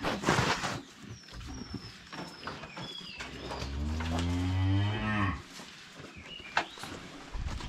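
A dairy cow mooing once, a low call of nearly two seconds starting about three and a half seconds in and dropping in pitch as it ends. A loud rushing noise comes right at the start, and short high chirps run through the first few seconds.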